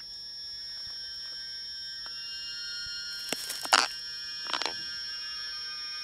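Animated-film soundtrack: several high, steady tones held together in a thin sustained chord, with two short, louder noisy calls about three and a half and four and a half seconds in.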